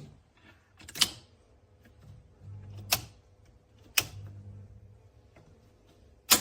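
Four sharp clicks at uneven intervals, with a faint low hum between them.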